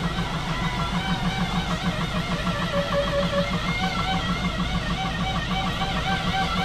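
Music led by electric guitar: long held notes with a wide wavering vibrato over a steady, repeating low pulse.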